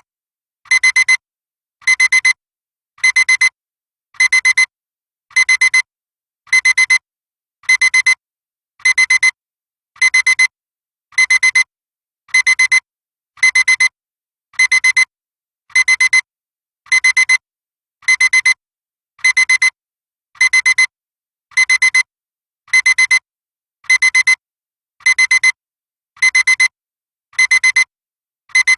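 Digital alarm clock beeping: a high electronic tone sounding in quick clusters of beeps, repeating about once a second.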